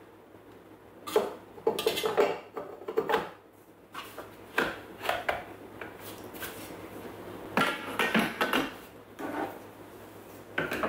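Stainless steel Thermomix TM6 mixing bowl being reassembled and handled: metal clinks and clatters in several short spells, the loudest between about one and three seconds in.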